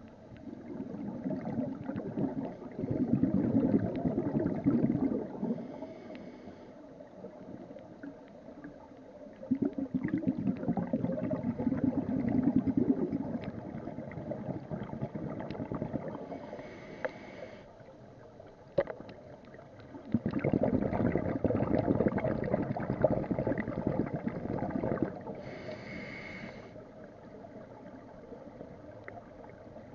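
Scuba regulator breathing underwater: three long bubbling exhalations, each a few seconds long, with a short hissing inhalation through the regulator after each, about once every ten seconds.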